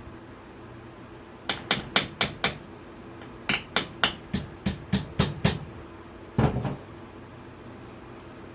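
Repeated hammer blows during an engine teardown: a quick run of about five strikes, a pause, then about eight more at roughly three to four a second. A short clatter follows near the end.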